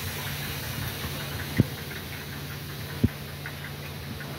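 Diesel locomotive engine idling with a steady low hum. Two sharp knocks come about a second and a half apart.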